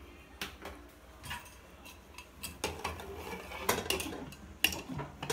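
Pressure cooker lid being put on and twisted shut by its handle: a scattered series of sharp metal clicks and knocks.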